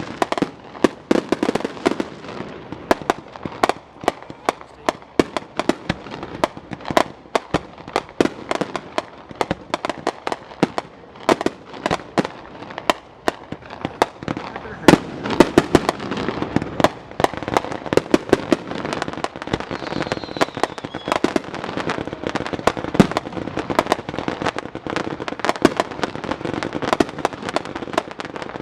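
Fireworks going off in quick succession: a dense run of sharp bangs and crackles, several a second, with the loudest bang about fifteen seconds in.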